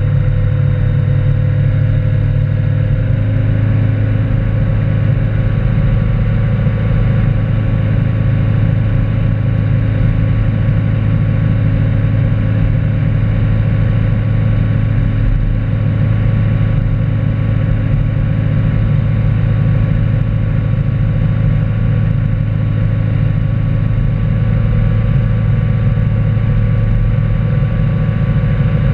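Tow boat's engine running at a steady cruising speed, a low drone that holds one pitch throughout, with water rushing in the churning wake behind the stern.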